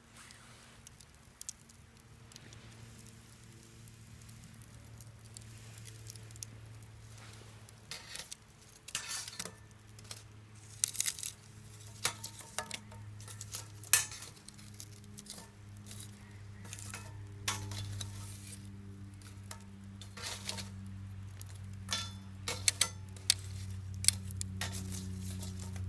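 Meat sizzling on an iron griddle plate over a wood fire, with sharp pops and the occasional clink of metal, growing denser after the first several seconds; a low steady hum runs underneath.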